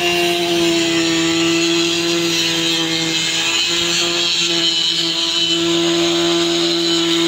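A handheld electric angle grinder runs steadily at full speed while its disc cuts through thin sheet metal. Its motor gives a steady whine under a strong high hiss.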